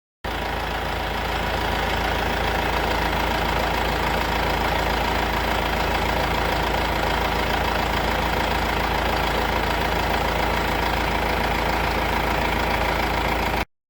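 Mercedes-Benz E220d four-cylinder diesel engine idling steadily.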